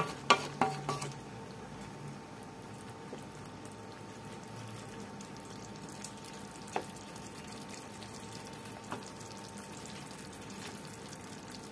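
A wooden spatula scrapes and taps in the pan for about a second, then rice in water simmers on a low flame with a faint, steady bubbling hiss. Two light ticks come later on.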